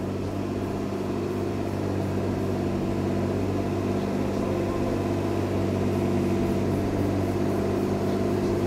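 Car engine held at a steady raised speed, its exhaust open with no gas-mask filter fitted: a constant hum that swells slightly over the first couple of seconds and then holds level.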